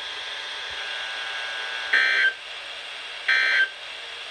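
Two short, harsh bursts of EAS/SAME digital data tones from NOAA Weather Radio, the first about two seconds in and the second about a second and a half later, over steady radio hiss. These are the end-of-message bursts that close the Required Weekly Test.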